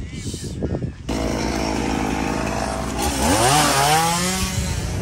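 A small engine starts abruptly about a second in and runs steadily. About two seconds later it revs up sharply and holds the higher speed.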